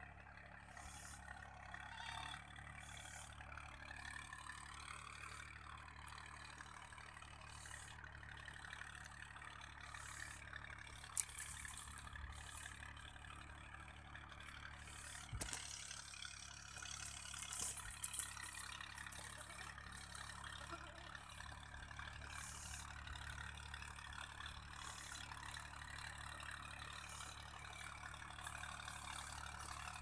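Faint outdoor background noise: a steady low rumble under a mid-range hiss, with short rustles throughout and a couple of sharp knocks near the middle.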